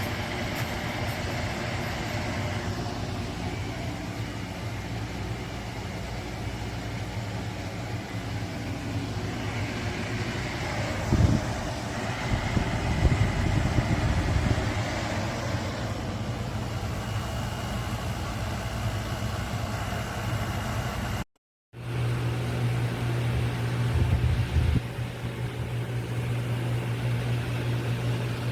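Shinco 12,000 BTU portable air conditioner running: a steady low compressor hum under the whoosh of its fan. After a short break about two-thirds of the way through, the hum is louder.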